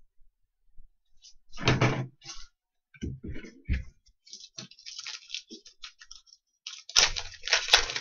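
Sports trading cards and foil pack wrappers being handled on a table: a knock, a few thumps and clicks, and crinkly rustling that gets louder near the end.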